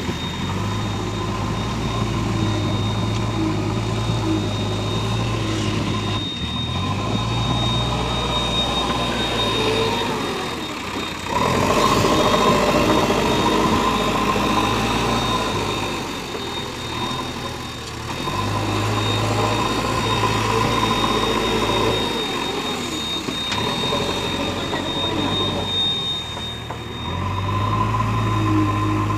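JCB 3DX backhoe loader's diesel engine running as the machine digs and loads soil, its load going up and down every few seconds as the hydraulic arms work, with a louder, noisier stretch near the middle.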